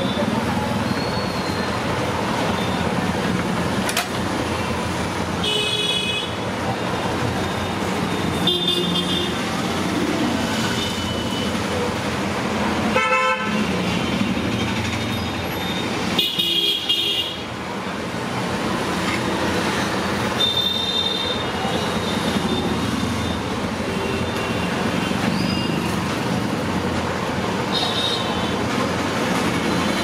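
Steady road traffic noise with vehicle horns honking briefly, about six times.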